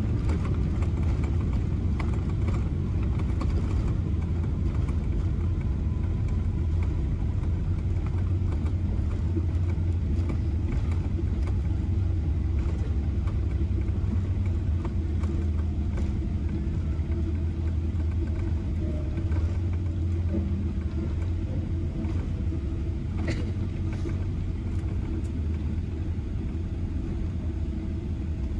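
Inside the cabin of a Boeing 777-300 on its landing rollout: a steady low rumble from the wheels on the runway and the engines, easing a little near the end as the jet slows.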